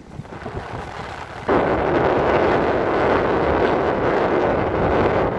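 Loud rushing of beach surf and wind on the microphone, jumping up suddenly about a second and a half in and staying loud.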